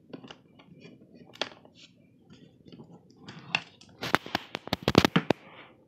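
Hands working the latch and lid of a hard gun case: a few light clicks, then a quick run of sharp clicks and knocks about four seconds in as the lid is opened.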